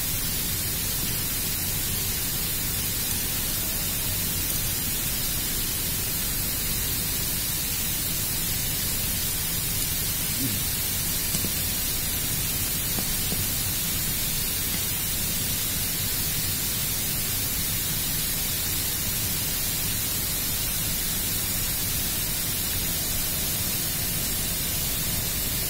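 Steady, even hiss with no distinct tool clicks or knocks.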